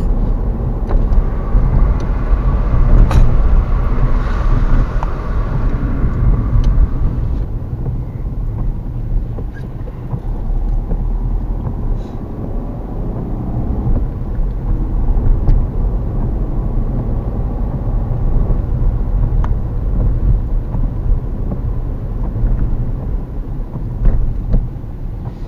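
Car driving on wet roads, heard from inside the cabin: a steady low rumble of engine and tyres, with a hiss from the wet tyres over the first seven seconds or so and a few faint clicks.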